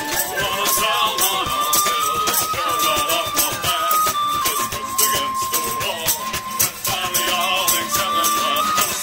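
Live folk-punk band playing an instrumental passage: a flute carries a melody of long held notes over strummed acoustic guitars and a steady percussive beat.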